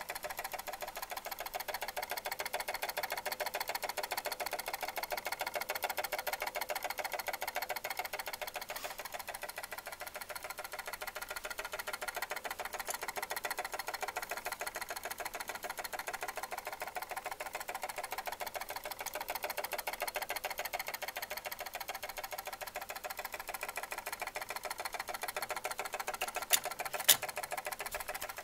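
Brass movement of an antique Ingraham mantel clock running with a rapid, steady metallic rattle of many tiny strokes a second, with some ringing. Two sharp clicks come near the end.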